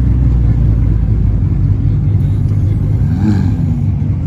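Sports car engine idling with a steady low rumble, its pitch briefly rising and falling a little after three seconds in, like a light blip of the throttle.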